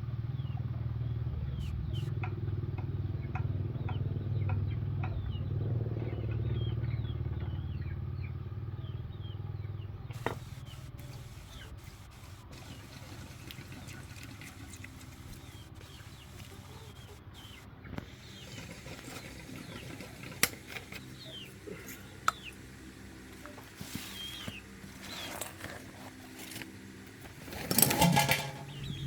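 An engine running low and steady, then dying away about ten seconds in. Birds chirp throughout, and a rooster crows loudly near the end.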